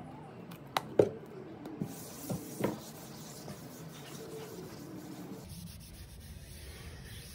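Cloth rubbing back and forth over a wooden furniture top as it is wiped by hand, with a few sharp knocks in the first three seconds, the loudest about a second in.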